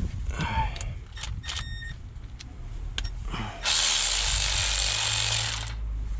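Metal tools and engine parts clinking and clicking, with one ringing metallic clink about a second and a half in. Then a loud, steady hiss starts suddenly and stops after about two seconds, over a low hum.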